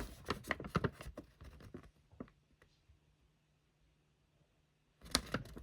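Light clicks and taps of small plastic model train parts being handled, scattered over the first two seconds, then near silence until sound comes back abruptly near the end.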